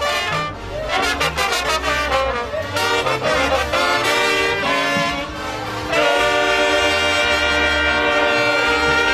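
Brass band playing a tune over a low bass line. About six seconds in, the band holds a long sustained chord.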